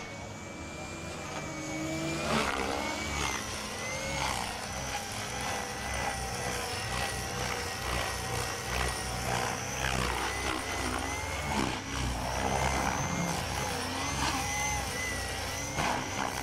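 Electric Align T-Rex 600 RC helicopter flying aerobatics: a high motor and gear whine that wavers in pitch with the load, with the rotor blades whooshing through flips and rolls. It gets louder about two seconds in as the helicopter comes lower.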